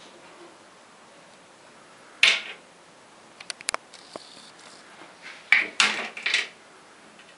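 Hard plastic toys knocking and clattering against a wooden shelf as a small child handles them: one loud knock about two seconds in, a few light clicks, then a cluster of knocks near the end.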